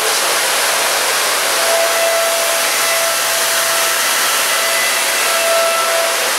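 Brother TC-S2DN-O CNC machining centre face-milling aluminium with a 125 mm face mill spinning at 8000 rpm: a steady, loud cutting noise with a faint steady tone through it.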